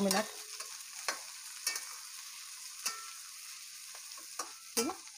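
Chopped onion, capsicum, cabbage and green chillies sizzling in oil in a stainless steel pot, with a steady hiss, while a spatula stirs them and scrapes and clicks against the pan several times.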